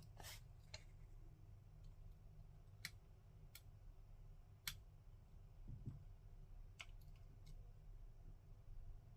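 Near silence with about seven faint, sharp clicks spaced irregularly, typical of lock picks and a tension tool working in the keyway of an ASSA Desmo lock cylinder.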